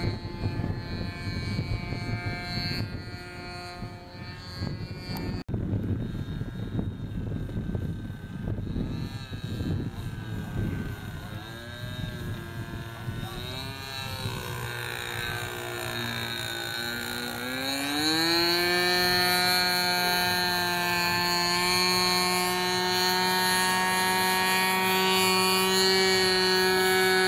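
Two-stroke glow engine of an RC aerobatic model plane (OS 55AX on a U Can Do 46) buzzing in flight. Its pitch sags and wavers, then climbs sharply about three-quarters of the way through to a steady, louder high whine as the throttle opens or the plane passes close. Wind gusts on the microphone are heard in the first half.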